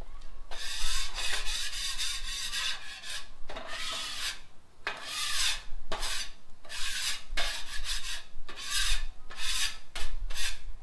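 Hand scraper dragged across the steel cooktop of a Blackstone griddle in a series of repeated rasping strokes, scraping cooked food bits off the surface.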